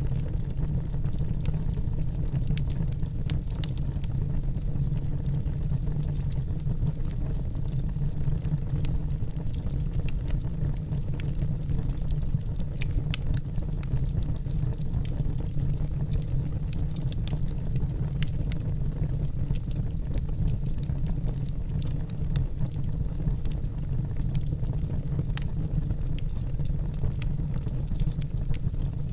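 Wood campfire burning and crackling: many small, sharp pops and snaps scattered irregularly over a steady low rumble.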